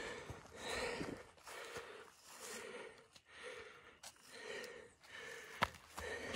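A hiker breathing hard close to the microphone, about one breath a second, winded from the steep uphill climb. A single sharp click a little past halfway through.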